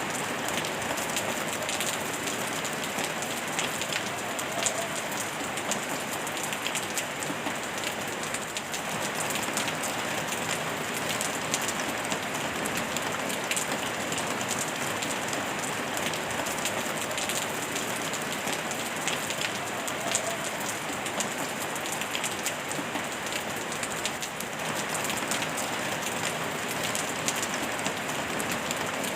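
Steady rain falling on a surface, a dense patter of fine drops over an even hiss of pink noise, with no change in level.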